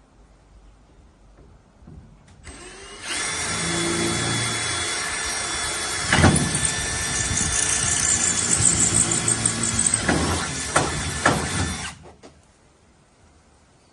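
Electric power drill running at speed for about nine seconds with a steady whine and a few sharp knocks, starting a few seconds in and cutting off suddenly near the end.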